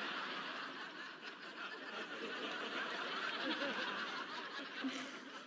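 Audience laughing at a joke, the laughter dying away near the end.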